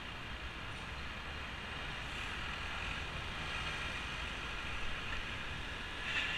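Steady wind and road rush on a bicycle-mounted action camera, with city traffic running on the street alongside; a little louder near the end.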